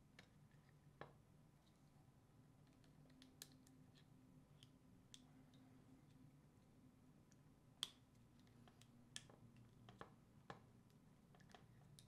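Near silence: a faint steady room hum with a few small, scattered clicks from hands twisting a plastic wire nut onto the dishwasher's white power wires. The sharpest click comes about eight seconds in.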